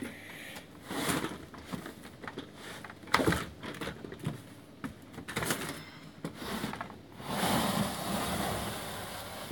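Handling noises: a sharp click at the start, a few scattered knocks, then about two seconds of rustling near the end.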